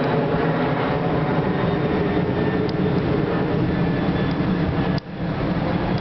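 Steady rumbling wind noise buffeting the camera microphone. It briefly drops out about five seconds in.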